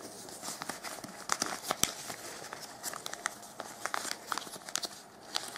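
Glossy paper (papel charol) origami modules rustling and crinkling in the hands as flaps are stretched, tucked inside and folded down, with many small crisp ticks at irregular moments.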